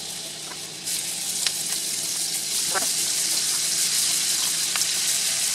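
Butter and olive oil sizzling in a hot nonstick frying pan. About a second in, the sizzle gets louder as diced onion and green bell pepper go into the fat, with a few faint clicks against the pan.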